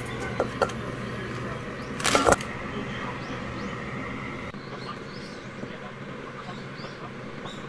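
Pieces of chocolate bar dropping into a stainless steel bowl of cream, a short clatter about two seconds in, over a steady hum.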